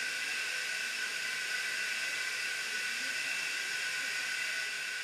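Steady hiss with several high, steady whining tones, the even sound of running machinery.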